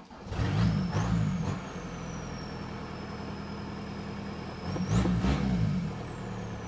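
VW Golf Mk2's TDI diesel engine starting at once on a replacement ECU whose immobiliser lets fuel through, then settling to a steady idle, with one burst of revs about five seconds in. A high turbo whistle rises with each burst of revs and slowly falls away afterwards.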